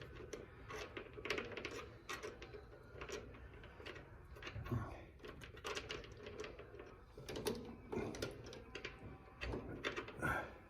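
Irregular small metallic clicks and taps of clutch springs and fittings being handled and worked into the jaws of a metal lathe's three-jaw chuck, with a few soft knocks.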